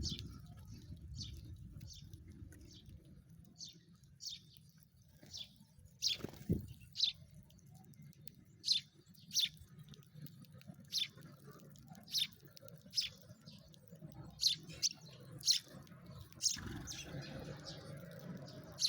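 Sparrows chirping: short, high single chirps repeated irregularly, about one or two a second. A low background hum gets louder about two-thirds of the way through.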